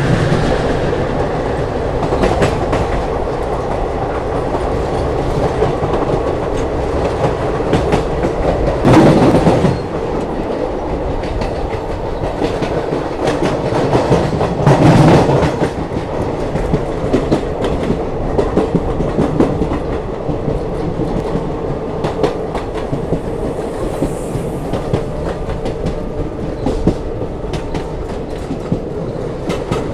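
Passenger train running on the rails: a steady rumble with the wheels clicking over rail joints. There are louder surges about nine seconds in and again about fifteen seconds in.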